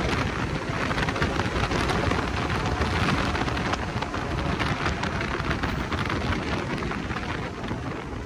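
Wind rush buffeting the microphone over the drone of a Can-Am Maverick X3 Turbo RR's turbocharged three-cylinder engine in its open cockpit at highway speed. The noise eases off a little near the end as the machine slows.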